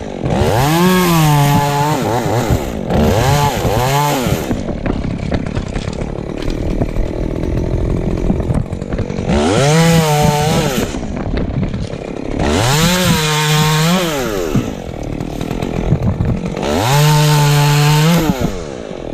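Chainsaw revved up to full throttle five times. Each time the pitch climbs, holds for a second or two, then drops back to a lower running note between.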